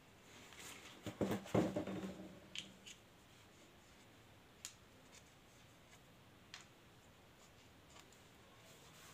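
Metal engine parts and tools being handled: a few clinks about a second and a half in, one ringing briefly, then a few light ticks.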